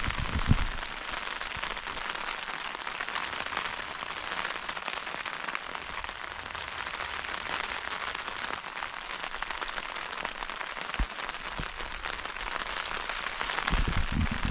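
Heavy rain falling on a tent's fly sheet, heard from inside the tent: a steady, dense hiss of drops. A few low bumps come in the first moment and again near the end.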